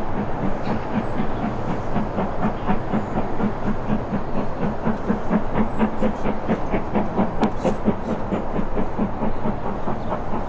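A train hauled by a Black 5 steam locomotive running along the line: a continuous rumble with a steady rhythmic beat of about three strokes a second.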